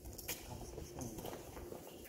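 Faint footsteps walking on the concrete road surface inside a tunnel, a soft patter of small scuffs and taps.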